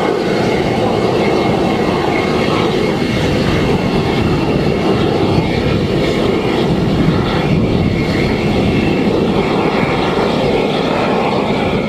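F-16AM's Pratt & Whitney F100-220E turbofan running steadily on the ground: an even rush of jet noise with a faint thin whine above it.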